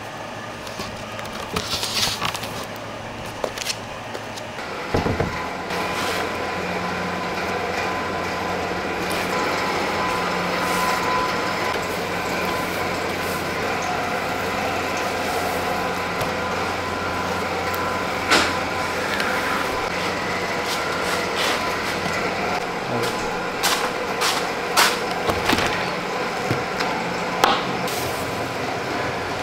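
Steady machine hum in a workshop, with scattered sharp knocks and clicks, one standing out about two-thirds of the way in and several more near the end.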